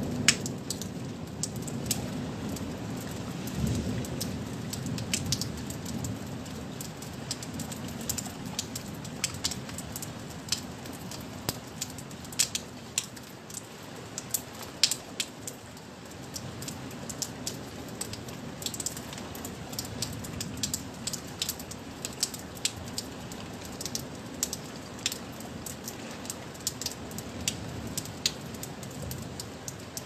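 Rain falling, with many sharp drops ticking close by over a steady low rumble that is heavier in the first few seconds.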